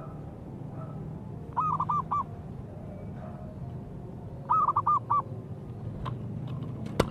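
Zebra dove (perkutut) cooing: two short phrases of four or five quick, clipped coo notes, about three seconds apart, over a steady low hum. A few sharp clicks near the end.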